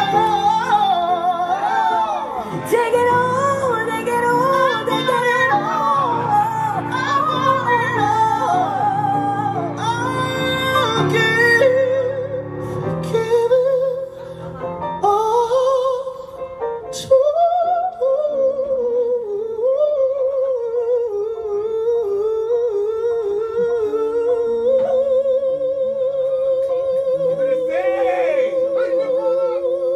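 A woman and a man singing a live soul-pop duet, trading fast melismatic vocal runs over low sustained chords. Near the end one voice holds a long note with vibrato.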